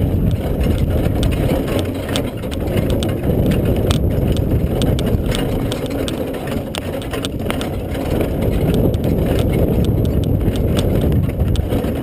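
Horse-drawn carriage moving at a trot: a steady low rumble with frequent sharp clicks and rattles from the carriage and harness.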